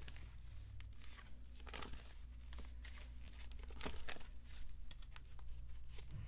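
Plastic photocard sleeves and binder pocket pages crinkling and rustling as cards are handled and slid into place, a string of short scattered rustles and soft taps over a low steady hum.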